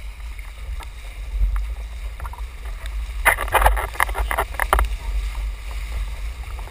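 Windsurf board planing over choppy water: a steady low rumble of wind and rushing water, with a cluster of sharp splashes and slaps from about three to five seconds in.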